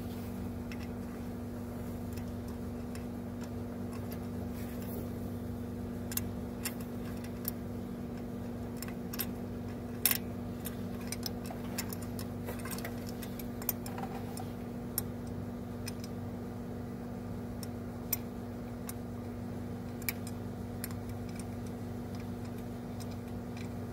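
Scattered light clicks and taps from hand work around the engine's oil pump and pickup-tube bolt, over a steady low hum. The clicks come irregularly, a few louder ones about ten seconds in.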